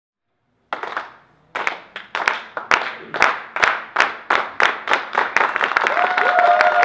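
A group of people clapping together in a steady rhythm, about two to three claps a second, starting about a second in. Near the end the claps grow denser and loosen into general applause.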